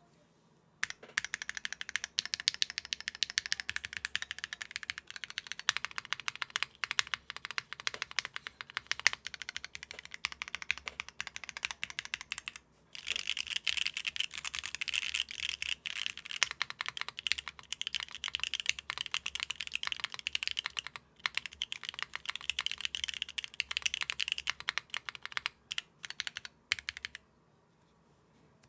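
Fast, continuous typing on a mechanical keyboard: a KBDfans Agar fitted with Swagkeys Coco Black switches (made by JWK) on a polycarbonate plate with no foam, and DCS-profile keycaps. The keystrokes run densely, with brief pauses about a third and two-thirds of the way through, and stop a little before the end.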